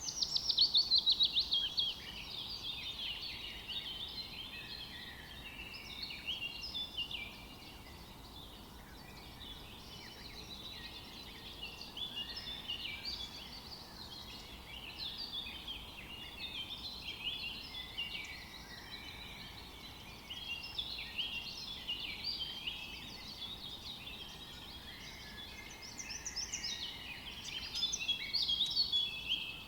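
Many small birds chirping and trilling together in a dense, continuous chorus of short high calls, loudest in the first two seconds and again near the end.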